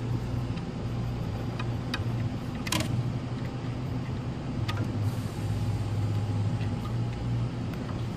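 A few sharp clicks and taps of hands working a hose and its clamp on an oxygen concentrator compressor, the loudest about a third of the way in, over a steady low hum.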